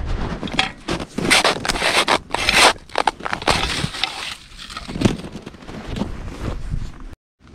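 A small folding shovel's metal blade digging into crusted snow and scooping it up, in a run of uneven crunching scrapes that are strongest in the first three seconds and lighter after.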